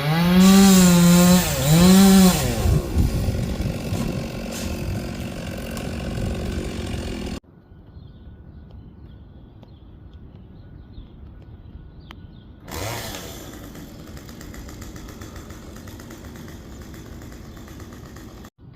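Chainsaw revved hard twice and then run through wood; after a quieter stretch in the middle, it spins up again with a rising whine and runs steadily.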